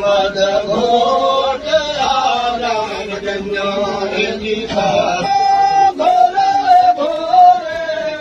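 A man's voice chanting in long held, wavering notes.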